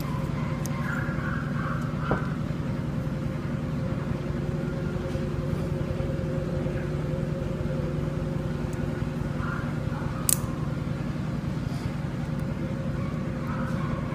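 Steady low mechanical hum, unbroken throughout, with a sharp click about ten seconds in and a fainter one about two seconds in.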